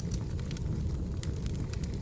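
Wood fire burning in a fireplace: a steady low rumble of flame with scattered sharp crackles and pops.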